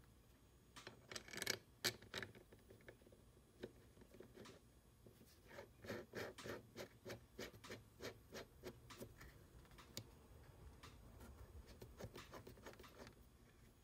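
Faint small metal clicks and scrapes as the knurled depth-adjustment screw of a Stanley No. 220 block plane is fitted into the plane body and turned by hand. There is a short cluster of clicks about a second in, then a regular run of ticks, about three a second, in the middle.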